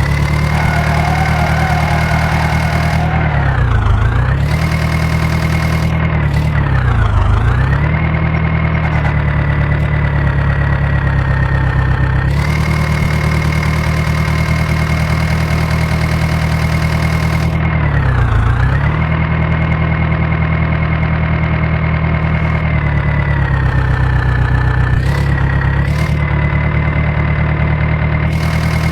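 Diesel engine running steadily. Its speed sags and recovers briefly several times, about four, seven and eighteen seconds in.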